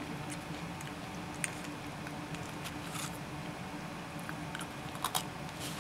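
A person chewing a small crumbly chocolate cookie, with a few soft crunching clicks over a steady low room hum.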